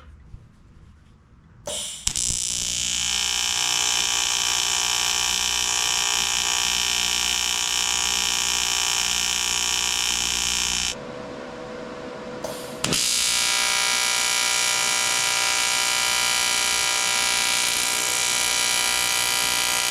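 ARCCAPTAIN TIG200P AC TIG welding arc buzzing steadily on aluminum tubing. It runs in two welds: the first starts about two seconds in and stops about halfway through, and the second starts about two seconds later.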